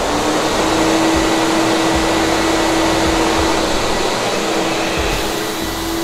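Wieland VacPro 16 industrial vacuum switched on at its lowest speed, with a single 1.2 kW blower running. It comes up to speed within about the first second, then gives a steady rush of air with a steady hum in it.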